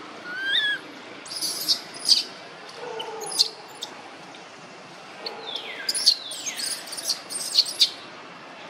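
Birds chirping: clusters of short, high chirps, with a couple of whistles that fall in pitch about two-thirds of the way through.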